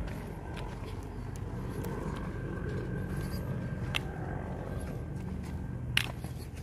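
Outdoor ambience recorded while walking along a dirt trail: a steady low rumble, with a few sharp clicks about four and six seconds in.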